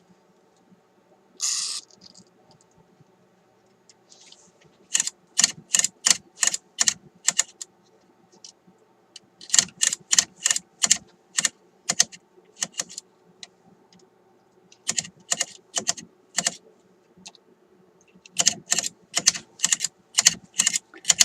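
Wafer band switch of an RCA M-45 tube radio being turned back and forth by hand, clicking through its detent positions in four quick runs of about four clicks a second, to work cleaner into its dirty contacts. A short hiss about a second and a half in, from a spray of contact cleaner.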